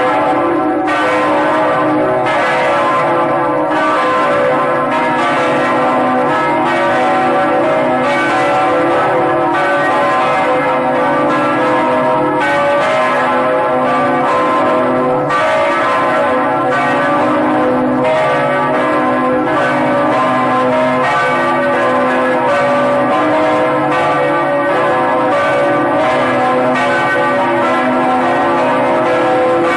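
Church bells pealing: several bells struck in quick succession, their tones overlapping into continuous ringing.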